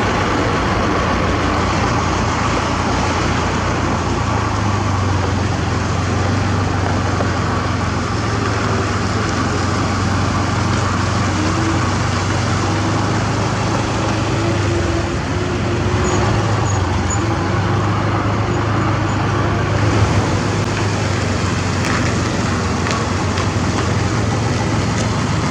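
Heavy diesel engine running steadily at an even pitch, with a constant low hum under a wash of mechanical noise.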